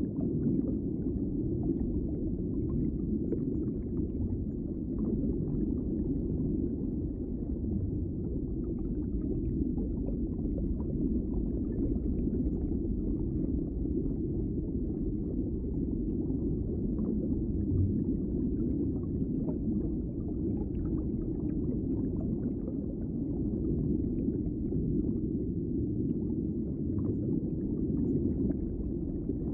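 Underwater ambience: a steady, muffled low rumble with faint scattered clicks and crackles.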